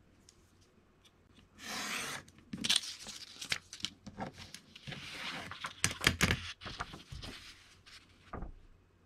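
A craft knife drawn along a steel ruler, cutting through printed paper mounted on styrene board, about a second and a half in. Then several sharp knocks and scraping and rubbing sounds as the ruler is shifted and the cut piece is pulled free of the sheet.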